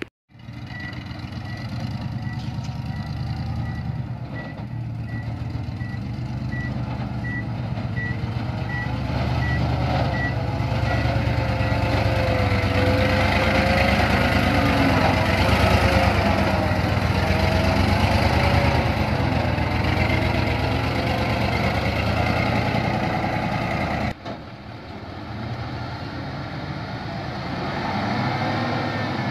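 Nissan Diesel V8 dump truck's engine working under load in soft mud, with its reversing beeper sounding at an even pace for the first ten seconds or so. The engine grows louder through the middle with a wavering whine, then runs on more quietly after a sudden drop about three quarters of the way through.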